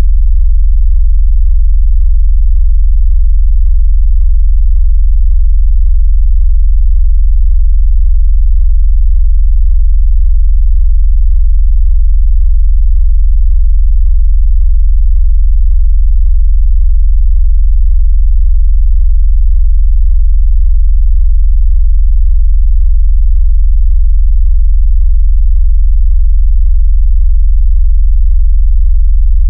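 Loud, steady, deep synthesized bass tone with nothing above it. It is played to make a phone vibrate and to shake water out of its speaker.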